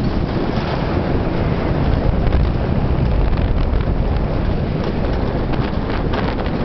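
Wind buffeting the microphone over the steady rumble of an alpine coaster sled running fast down its metal rails, with a rattle of quick clicks near the end.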